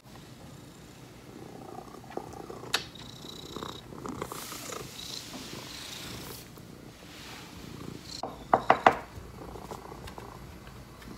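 A domestic cat purring close up. About eight and a half seconds in come three sharp, loud sounds in quick succession, with a single click earlier.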